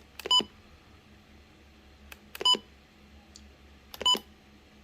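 Retekess TR265 weather radio's keypad beeping as its buttons are pressed to scroll through the setup menu: three short, high electronic beeps, spaced a second and a half to two seconds apart.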